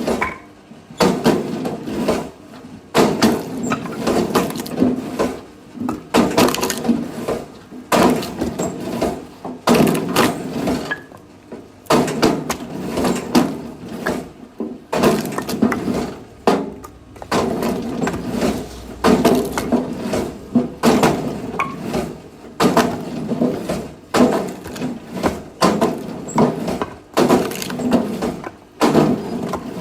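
Firewood being split with an axe: repeated heavy blows, about one every second or two, each with the crack of wood splitting.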